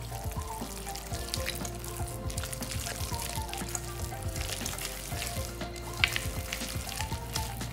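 A hand kneading a wet paste of minced chicken and pork with sago flour and ice water in a stainless steel bowl: rapid squelching and slapping, with one sharper knock about six seconds in.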